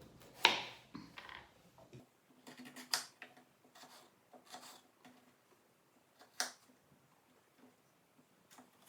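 A knife cutting small pieces off a carrot: a few short, sharp clicks and knocks, the loudest about half a second in and others around three, four and a half and six and a half seconds in.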